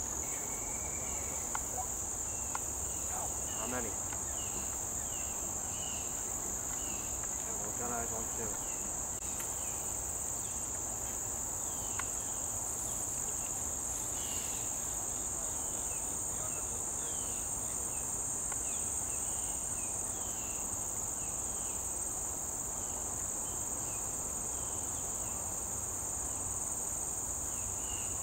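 Steady high-pitched insect chorus, with short chirps repeating over it.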